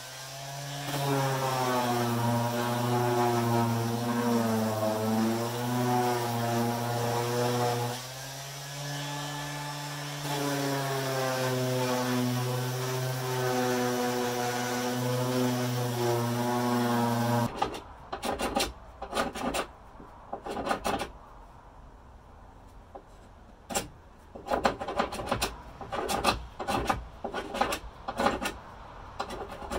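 Random orbital sander running against wood, its motor hum wavering slightly and dropping quieter for a couple of seconds about eight seconds in. It stops suddenly about seventeen seconds in, and irregular hand-scraper strokes follow, scraping the old finish off a wooden tabletop.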